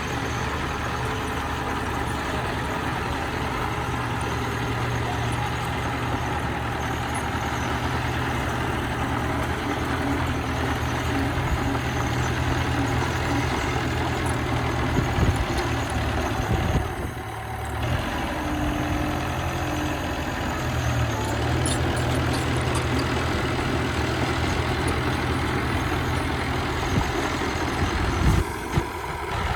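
Bulldozer's diesel engine running steadily, with a short drop in the engine sound a little past halfway. A few sharp knocks are heard, one about halfway and one near the end.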